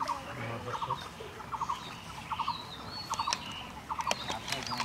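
A bird calling over and over, a quick cluster of three or four notes repeated a little more than once a second, with a few thinner, higher whistled notes from other birds and some sharp clicks near the end.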